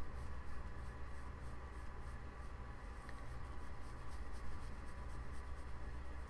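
Soft, repeated brushing strokes of a large powder brush sweeping over skin as loose powder is buffed on, over a steady low hum.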